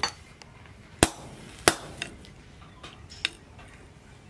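Hammer blows on a hand-held steel punch set against a red-hot cleaver blade on an anvil. Two loud metal strikes come a little over a second in, under a second apart, followed by a few lighter knocks.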